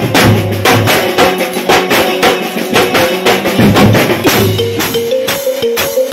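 Mumbai banjo party band playing loudly: fast, driving drumming on stick-beaten bass drums and drum kits with crashing cymbals. A melody line over the drums comes through more clearly in the second half.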